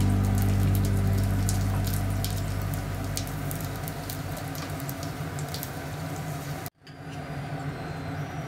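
Gyoza frying in a shallow layer of oil over medium heat, a steady sizzle with fine crackles and spits as the skins brown. About two-thirds of the way through the sound cuts out for a moment, then a quieter sizzle follows.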